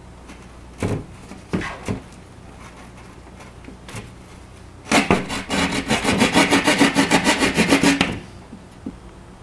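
Hand drywall jab saw cutting sheetrock: a few separate jabs in the first two seconds, then about three seconds of fast back-and-forth sawing strokes, roughly eight a second, that stop abruptly.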